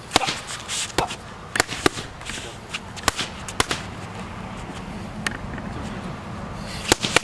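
Gloved punches smacking into handheld focus mitts: about eight sharp smacks, some landing in quick one-two pairs.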